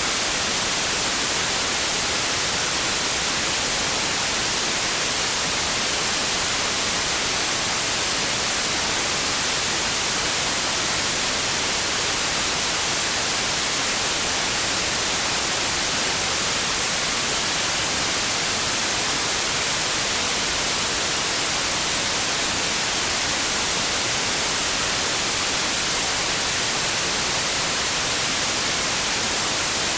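Steady white noise, an even hiss with no changes or events.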